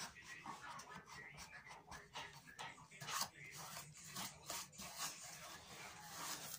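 Faint, irregular scraping strokes of a hand gouge cutting into a wooden board, then a hand brushing wood chips off the carved surface.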